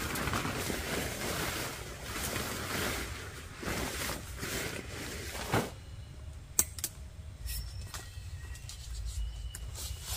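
Nylon tent fabric rustling and crinkling as it is handled, for about the first five seconds. Then it falls quieter, with a few sharp clicks and birds chirping.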